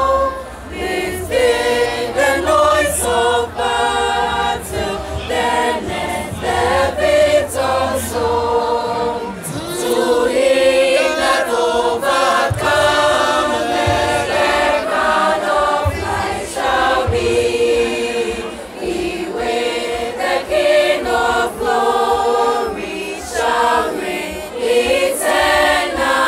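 A girls' high-school choir singing, many young female voices together.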